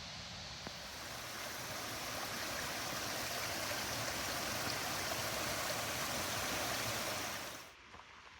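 Creek water rushing and gurgling steadily over rocks. It swells a little about a second in and cuts off abruptly shortly before the end.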